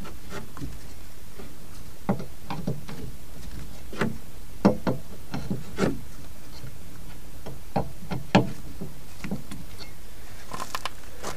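Four-way cross wheel brace on a trailer wheel's nuts: irregular metallic clicks and knocks as the brace is fitted to each nut and the nuts are nipped up, over a steady background hiss.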